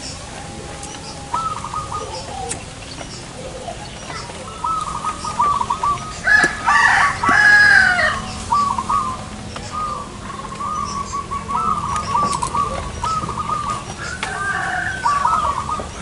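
Zebra doves cooing in runs of short, quickly repeated trilled notes. A rooster crows loudly about six seconds in.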